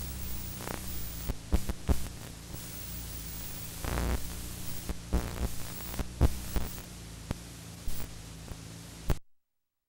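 Recording hiss with a steady mains hum, broken by scattered clicks and pops. It cuts off abruptly to silence near the end.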